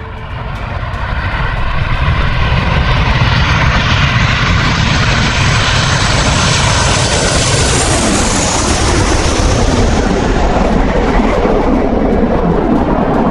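Fighter jet engine noise that builds over the first couple of seconds and stays loud, with a high whine that falls in pitch about eight seconds in.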